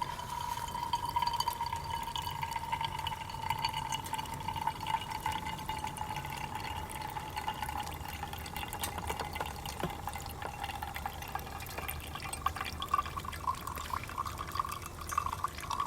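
Esbit stainless steel coffee pot heating over an alcohol burner, the water crackling and bubbling as it nears the boil before the coffee comes up the stem. A steady whistle-like tone runs over it, sagging slightly in pitch and rising again near the end.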